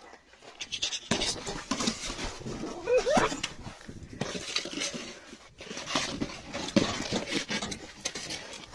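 A dog snuffling and whining as it noses and scuffs in the dirt, with a short rising whine about three seconds in.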